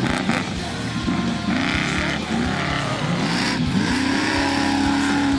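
Off-road race vehicle engine revving up several times in quick succession, rising in pitch each time, then held at high revs near the end. Background music with a regular beat plays underneath.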